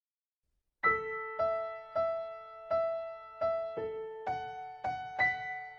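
Background music: a keyboard playing a slow melody of struck, ringing notes, starting about a second in after silence.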